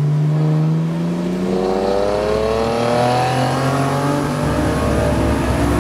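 Car engine accelerating, its pitch rising over about two seconds and then holding steady, heard from inside the car's cabin.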